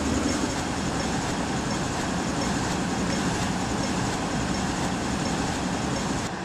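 Steady city street traffic noise, an even wash of engine and tyre sound with no tune or voice in it; near the end the high hiss drops away.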